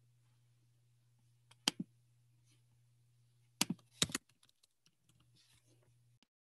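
Scattered computer keyboard keystrokes: a pair about a second and a half in, a louder cluster around four seconds and a few light taps after. Under them runs a faint steady low hum that cuts off to dead silence near the end.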